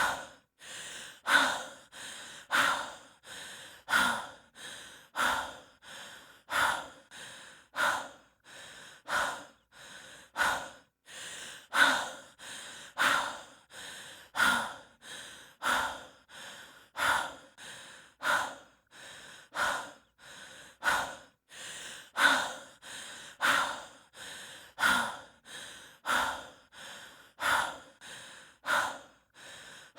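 A person breathing heavily and fast in an even rhythm, a strong breathy gust about every second and a third with a softer breath between.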